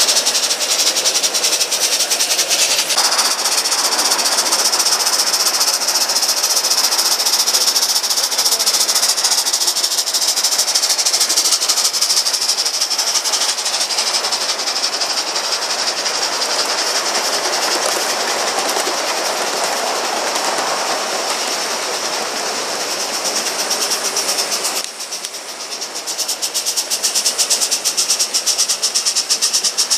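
Gauge one live-steam model locomotive running with a train, giving rapid, even exhaust chuffs over a steady hiss of steam. The sound dips briefly near the end and then comes back.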